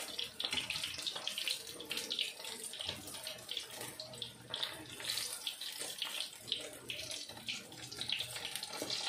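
Hot oil sizzling and crackling steadily as battered calamari rings deep-fry.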